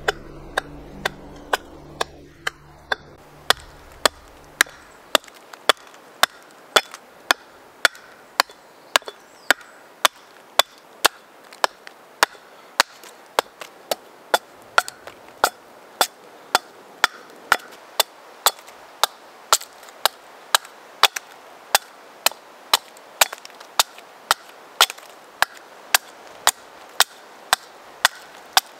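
Axe chopping into an upright section of green log, hewing it to shape: a steady run of sharp chops, nearly two a second.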